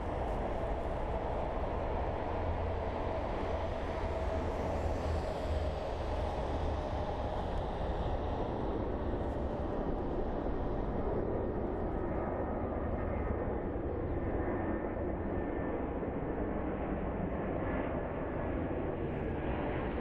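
Jet airliner engines rumbling steadily after takeoff, the higher hiss fading away over the first half as the aircraft climbs away, leaving a low rumble.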